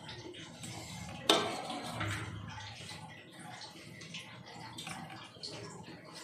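A single sharp clank of steel kitchenware about a second in, then the soft rustle and light clicking of chopped onion and vegetables being mixed by hand in a steel bowl.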